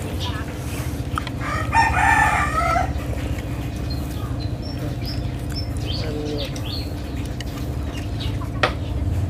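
A rooster crowing once, about two seconds in, over a steady low hum. A single sharp tap comes near the end.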